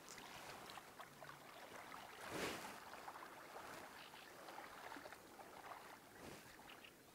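Faint wind and small waves lapping against the shore, with a gust swelling about two and a half seconds in.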